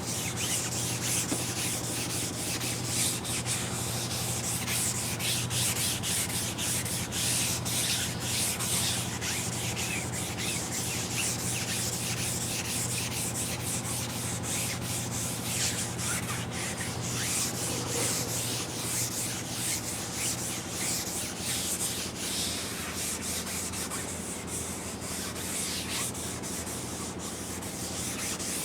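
Repeated strokes of 150-grit sandpaper rubbing across a guide-coated car fender, taking out the 80-grit scratches to leave a smooth surface for primer.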